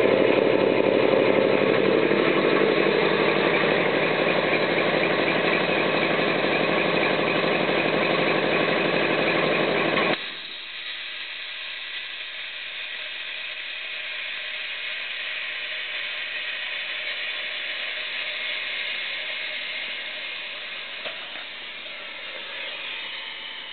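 Homemade belt-driven electric air compressor running steadily, then cutting off abruptly about ten seconds in as it reaches its cut-out pressure of about 108 psi. A fainter steady hiss follows and slowly fades, the solenoid unloader venting the pump's head pressure.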